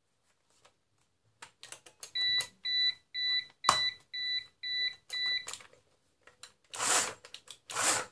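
Plastic clicks and knocks of a cordless chainsaw's body being handled, with a run of about eight short, evenly spaced electronic beeps from about two seconds in to past five seconds. Near the end come two brief bursts of rubbing.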